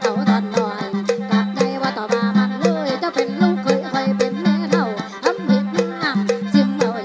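Isan mor lam folk music: a steady drone with a winding melody bending over it and a fast, even ticking percussion beat.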